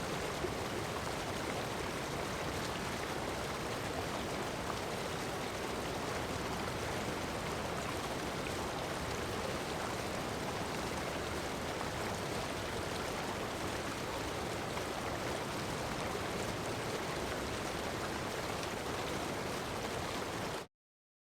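Heavy rain falling on sand with ocean surf behind it, a steady even hiss with no rise and fall. It cuts off abruptly near the end into dead silence.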